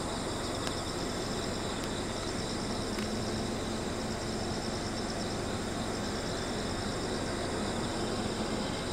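A steady chorus of insects chirring, over a low, steady rumble.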